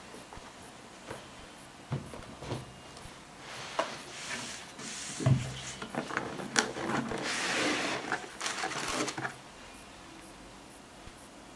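Hands handling a sneaker: scattered light knocks and taps, a thump about five seconds in, then a few seconds of rubbing and scraping as the insole is pulled out of the shoe.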